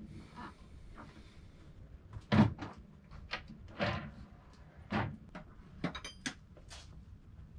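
A handful of separate dull knocks and thumps, about six over several seconds, the loudest a little over two seconds in, over faint room hiss.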